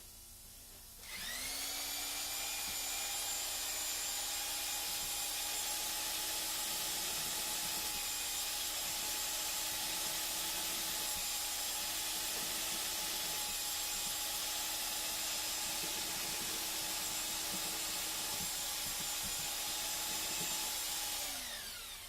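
Electric drill with a mixing paddle running at steady speed, churning popcorn ceiling texture mud to a thin, watery consistency. It spins up about a second in, holds one steady pitch for about twenty seconds, then winds down near the end.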